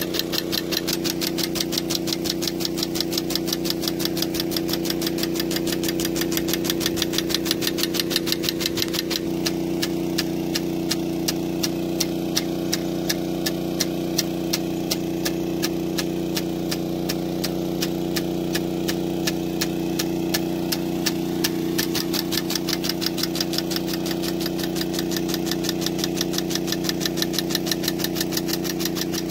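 A 7.5 hp water pump running steadily with a constant hum, pushing water to a rain gun impact sprinkler, with the hiss of the spraying jet and a fast, regular ticking over it.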